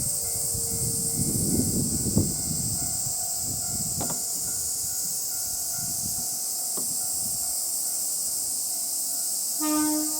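Akechi Railway diesel railcar running along the line, its low rumble with sharp clicks over the rail joints fading away, under a steady high insect drone. A brief pitched tone sounds near the end.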